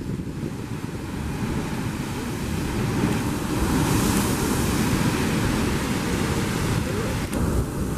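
Sea surging into a blowhole chasm in layered limestone, a rushing wash of surf that swells about three seconds in as spray bursts up, with wind rumbling on the microphone.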